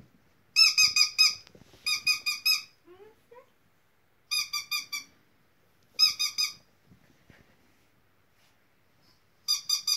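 Rubber chicken squeaky dog toy squeezed in quick bursts: five runs of four or five short squeaks, all at the same high pitch, with pauses between them.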